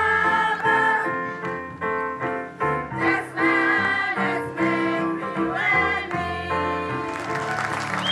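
Children's choir singing together with instrumental accompaniment, held sung notes changing every half second or so. About seven seconds in the song ends and the audience starts applauding.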